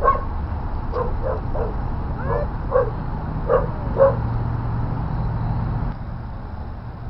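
A dog yipping and barking in short, high calls, about eight in the first four seconds, one of them a bending whine, over a steady low rumble.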